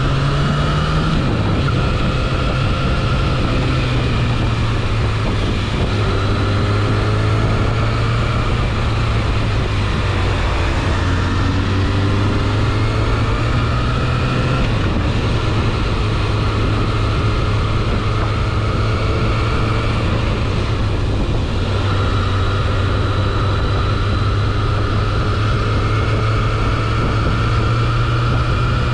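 Sport motorcycle engine cruising at low speed, heard from the rider's seat. The note holds steady but steps in pitch a few times as the bike shifts up from second through fourth gear.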